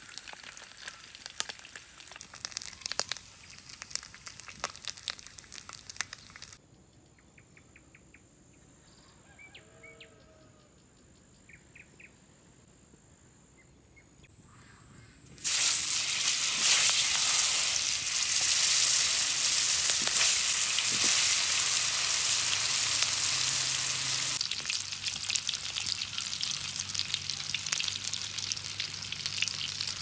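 Sausages dropped into hot oil in a steel wok over a wood fire: a sudden loud, dense sizzling and spitting starts about halfway and carries on, easing slightly near the end. Before it comes fainter frying crackle with small clicks, then a quiet lull.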